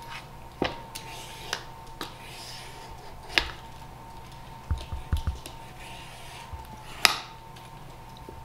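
T-shaped vegetable peeler scraping the skin off a pre-cooked butternut squash in soft rasping strokes. A few sharp clicks and taps come in between, the loudest about seven seconds in, as the peeler and squash knock on the plastic cutting board.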